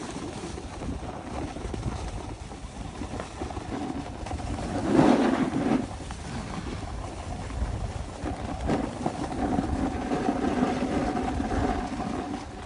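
Wind buffeting the microphone over the scrape of a snowboard sliding across packed, groomed snow while riding downhill, with one louder swell about five seconds in.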